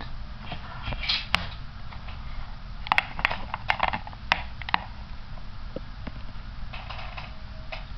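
Hard clear plastic playing-card case being handled and opened on a tabletop: a scatter of sharp plastic clicks and taps, most of them between about three and five seconds in, then a short light rustle near the end.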